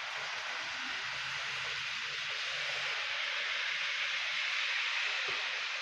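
Steady, even background hiss with a faint low hum underneath; no distinct events.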